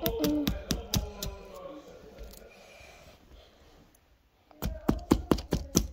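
A pointed tool chipping at frozen ice in a plastic cup: quick sharp taps, about four or five a second. They fade out about two seconds in and start again loudly near the end.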